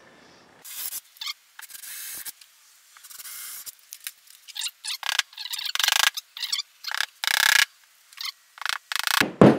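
DeWalt cordless drill boring small holes into drywall for wall anchors, in a series of short bursts. A knock near the end.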